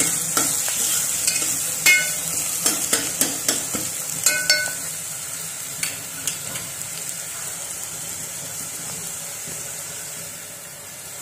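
Chopped onions frying in oil in a metal pot, sizzling steadily, while a wooden spatula stirs them with quick scrapes and knocks against the pot for the first half; after that the frying sizzle goes on alone, slightly quieter.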